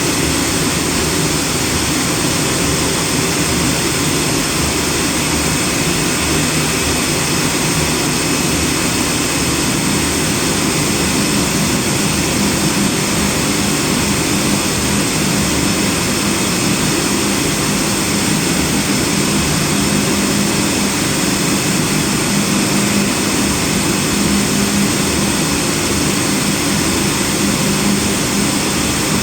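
CNC cutter running a cutting program on snowboard base sheet: a steady, loud machine noise with faint steady tones through it and no pauses.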